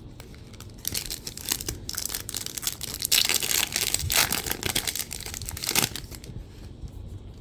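Wrapper of a Bowman Chrome University basketball card pack being torn open and crinkled. The rustling starts about a second in, is loudest around the middle and dies away about six seconds in.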